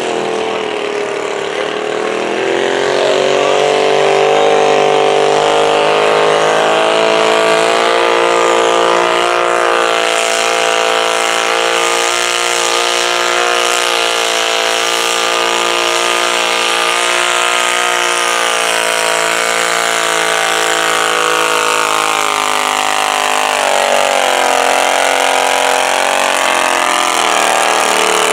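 Super stock garden tractor engine running hard under load as it drags a weighted stoneboat sled down the pulling track. The pitch climbs over the first few seconds and holds steady. It dips about 23 seconds in, then climbs again near the end.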